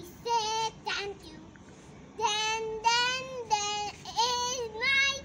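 A young child singing a nursery rhyme with no accompaniment: two short notes, then a run of longer held notes, some sliding up in pitch.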